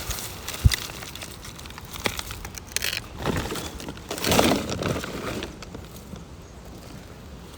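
Rustling and crinkling of litter and debris being handled, with a sharp knock less than a second in and a click about two seconds in; the rustling is loudest midway, then dies down.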